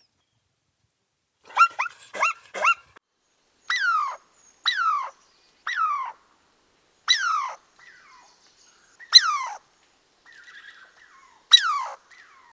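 A dog yelping: a quick run of four short yelps, then six longer cries spaced a second or two apart, each falling sharply in pitch.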